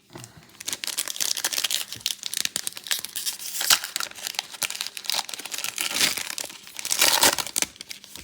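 A trading-card pack wrapper being torn open and crinkled by hand: a dense crackling that goes on for several seconds.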